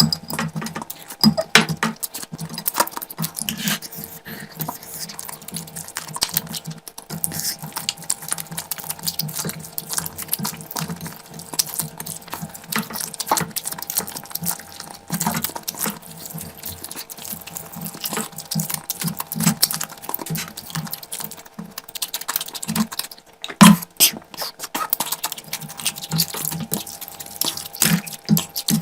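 Close-miked eating sounds: wet chewing and lip smacking over mouthfuls of curry and rice, a dense, uneven run of short smacks and clicks, with one louder smack near the end.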